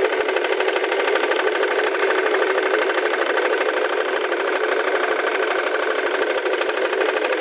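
Ford Mondeo Mk3 2.0 TDCi four-cylinder diesel engine idling steadily with a fast, even knocking rattle, which the owner suspects may come from the crankshaft pulley.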